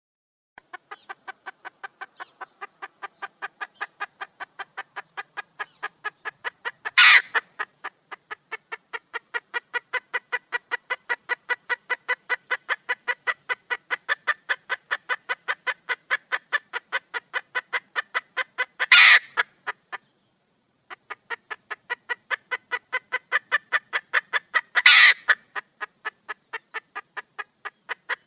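Female red junglefowl calling for a mate: a long run of fast, even clucking calls, about five a second, broken by a short pause and by three louder, harsher notes.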